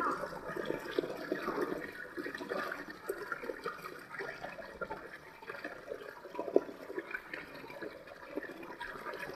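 Small shallow stream running over stones: a steady babble of many small, irregular splashes and gurgles.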